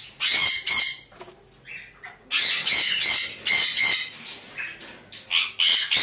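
Green Psittacula parakeet hen on her eggs in a wooden nest box, squawking harshly at the opened box: runs of rapid calls, several a second, with a short lull about a second in.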